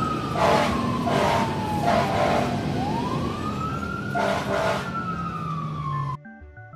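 Fire engine siren wailing, slowly rising and falling twice, with a few short horn blasts and a low engine rumble underneath. The sound cuts off suddenly about six seconds in.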